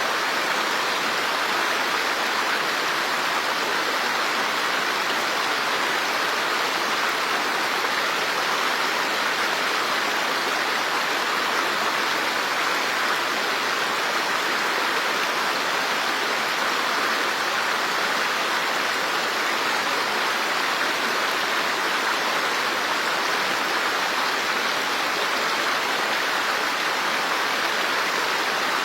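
Running water in a steady, even rush that does not change, with no splashes or drips standing out.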